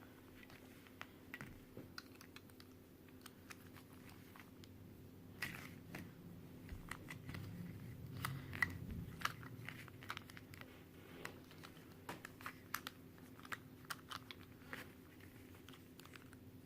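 Faint, irregular clicking of small plastic pieces from a disassembled Qiyi stickerless Square-1 puzzle being handled and set down.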